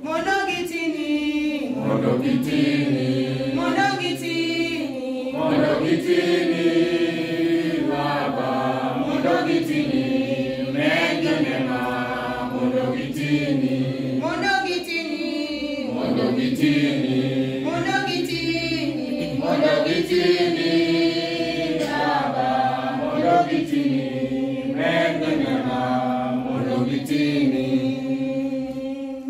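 Church choir singing a hymn, many voices together in sung phrases.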